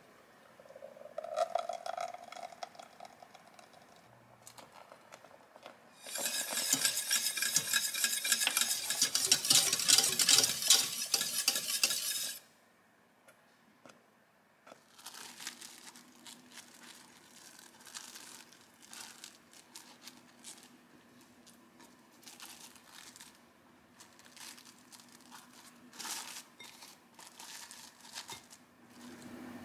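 Wire whisk clicking rapidly against a stainless steel saucepan while custard cream is whisked over the heat, loudest for about six seconds in the middle. Softer whisking and scraping in the pot follow. Liquid egg mixture pours into the pot at the start.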